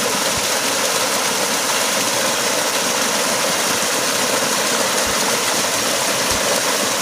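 Water rushing steadily down a small cascade in a stream, with a few brief low thumps about half a second in and again in the last two seconds.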